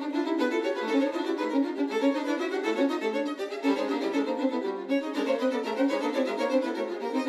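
Violin music: a quick, continuous stream of short notes.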